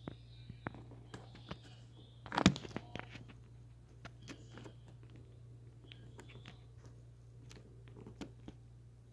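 Handling noise close to the phone's microphone: scattered light clicks and rubbing, with one louder knock about two and a half seconds in, over a steady low hum.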